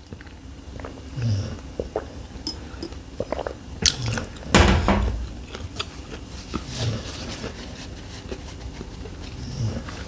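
Close-miked drinking and mouth sounds: water sipped through a straw and swallowed, with soft low gulps every second or two and one louder bump a little before halfway.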